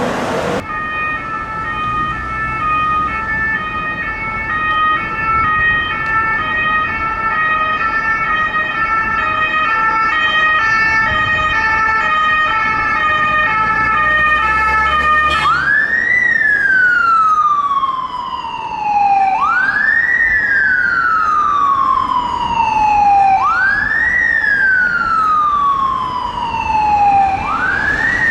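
Ambulance siren: for about fifteen seconds a two-tone sounds, switching quickly back and forth between two close pitches. It then changes to a wail that sweeps up fast and falls away slowly, four times about four seconds apart.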